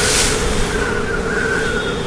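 Storm wind and surf: a steady rush of wind and waves, loudest at the start as a wave breaks, then easing slightly. Faint steady tones sound through it.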